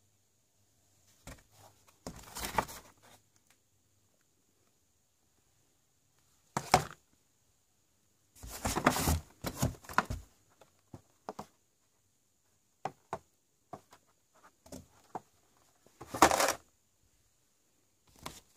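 Cardboard firework boxes and packaging being handled and shifted about in a carton: spells of rustling and scraping with light knocks, the loudest around the middle and again near the end.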